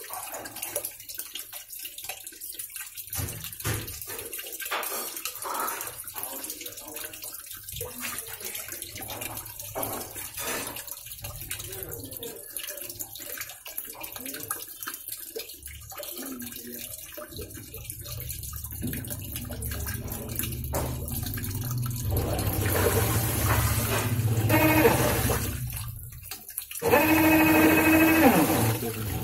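Midea top-load washing machine filling with water. Its drive motor and gearbox then start up with a low hum that grows louder, turning into a loud whining, grinding drone that stops briefly and starts again near the end. This is the gearbox noise that the repairman puts down to a failed gearbox.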